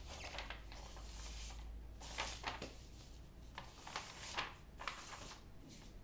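A large diamond-painting canvas with its plastic cover film rustling and crinkling as it is lifted and pulled back by hand: a soft continuous rustle at first, then a series of short crinkles.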